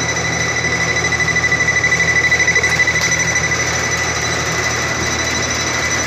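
Pen-style non-contact voltage tester beeping in a fast, high-pitched pulse that grows a little louder around the middle. It is picking up live voltage through the ceiling well away from the light fixture, from the house's old knob-and-tube wiring.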